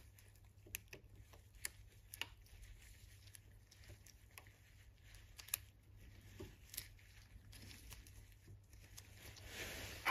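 Faint, scattered small metal clicks and scrapes as a spring and pawl parts are worked back into a ratchet head with a thin screwdriver, with a light rustle of gloved hands; one sharper click about five and a half seconds in.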